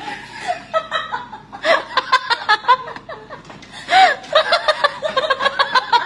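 A person laughing hard in quick, repeated bursts, with one louder rising-and-falling cry about four seconds in.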